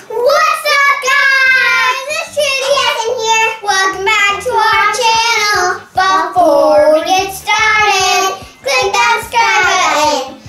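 Young girls singing a song with long held notes over backing music with a beat.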